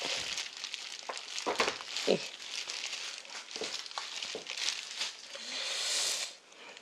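Disposable plastic gloves crinkling and wet, seasoned ponytail radishes squelching as they are handled and packed into a plastic kimchi container, with a few dull knocks, the clearest about a second and a half and two seconds in.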